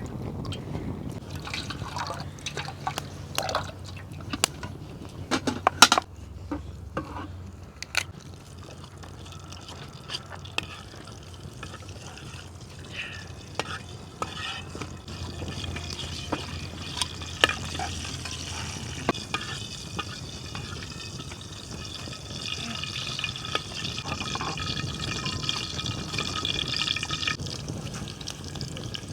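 Cooking-pot and bowl handling with water: a scatter of knocks and clinks in the first several seconds, then a longer stretch of liquid being poured or stirred that grows louder and stops abruptly shortly before the end.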